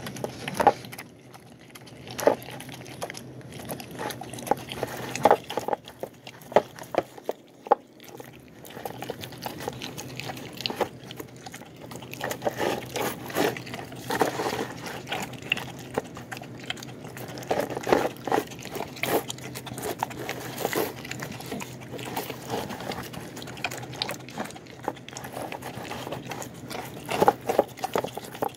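A dog eating from a bowl of chicken mush, rice and bone nubs: irregular wet chewing and slurping, broken by clusters of sharp clicks and crunches.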